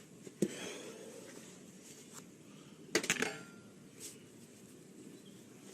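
A few sharp clicks and clinks: a single one about half a second in, then a quick cluster of them about three seconds in, over a quiet steady background.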